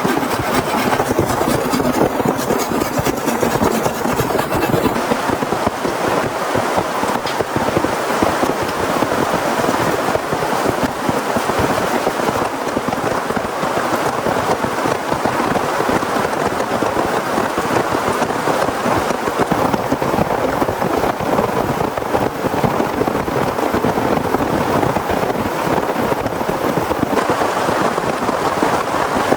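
Heavy rain falling steadily, an even hiss of drops with no let-up.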